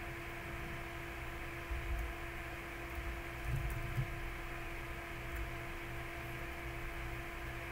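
Steady electrical mains hum with a low rumble and hiss, and a few faint clicks.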